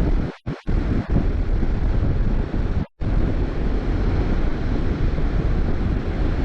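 Strong wind buffeting the camera microphone: a loud, low rumble that cuts out abruptly a few times, especially in the first second and again near three seconds. Surf may lie beneath it.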